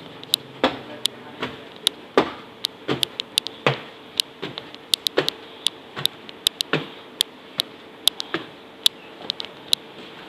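Footsteps going up wooden stairs and walking on: a run of sharp, irregular taps and clicks, several a second, over a steady faint hum.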